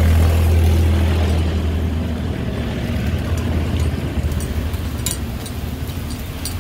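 A motor vehicle engine running close by, a steady low hum that fades after the first two or three seconds. Light clicks of metal tongs against the iron tawa come through near the end.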